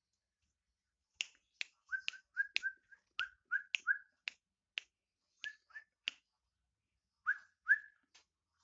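Black-naped oriole (kepodang) calling: starting about a second in, a rapid series of sharp, snapping notes, many followed by a short whistled note, with a brief pause before a final few.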